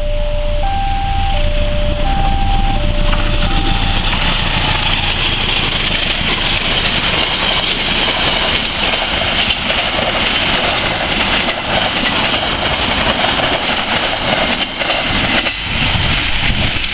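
Passenger train hauled by a CC204 diesel-electric locomotive passing close by, its coaches' wheels giving a steady rolling rumble and hiss on the rails that eases a little near the end as the last coach clears. For the first few seconds an electronic two-tone warning signal alternates between a higher and a lower note before fading under the train noise.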